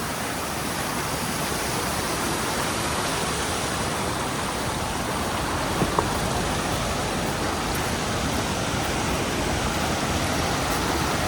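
Steady rushing of a river and waterfall pouring over rocks, an even roar with a single faint tick about six seconds in.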